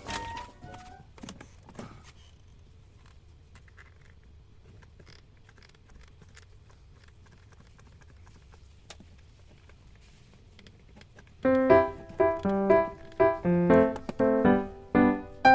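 Background music: a melody fades out at the start, a long quiet stretch follows with only a few faint clicks, then a piano-like keyboard melody starts about eleven seconds in.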